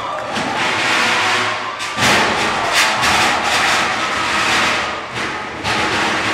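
Combat robots clashing in the arena, with sudden loud bangs about two seconds in and again near the end, over the noise of the crowd.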